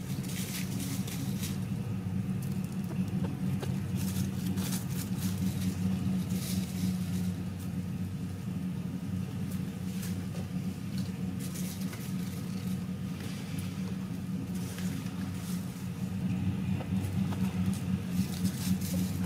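A steady low mechanical hum, with faint, irregular crackly rustling on top.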